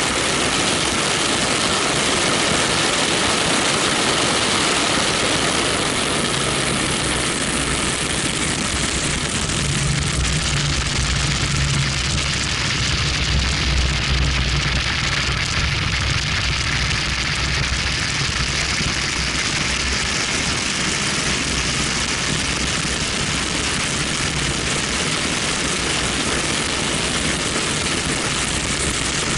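Wind rushing over an action camera's microphone on the outside of a BMW 1M at track speed, with the car's twin-turbo straight-six engine and tyre noise underneath. The engine's low note comes up in the middle as the car goes through a corner.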